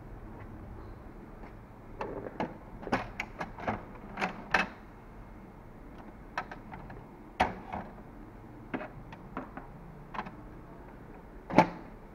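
A run of irregular plastic clicks and knocks from handling an HP DeskJet 2130 inkjet printer: its front cartridge access door is opened and ink cartridges are taken from the carriage and set on the lid. The loudest knock comes near the end.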